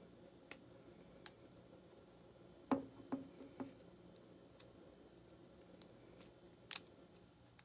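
Faint small clicks and taps of wooden popsicle sticks and a plastic spoon being handled while rubber bands are wrapped around them, with a sharper tap near the middle followed by a few softer ones, and another click near the end.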